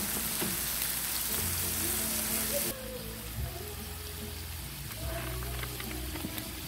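Diced onion, tomato and garlic sizzling in oil in a frying pan. The bright hiss drops sharply about two and a half seconds in, leaving a quieter sizzle.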